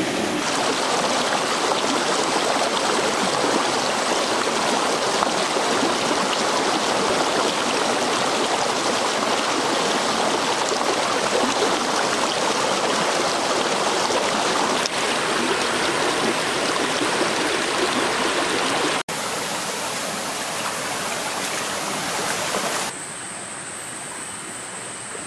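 Shallow jungle stream rushing steadily over rocks. The rush steps down in level about 19 seconds in, then drops to a much quieter background near the end.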